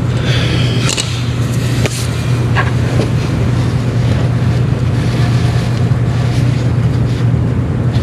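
A steady low mechanical hum runs throughout, with a few short clicks and rustles as a hand feeds an air-spring air line behind the rear tyre and wheel-well liner.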